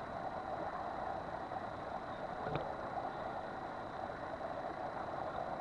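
Boat's motor running steadily, with a single short knock about two and a half seconds in.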